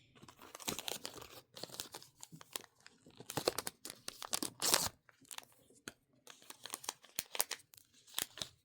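Small plastic wrapper being crinkled and torn open by hand, a run of short, irregular crackles with the loudest tear about five seconds in.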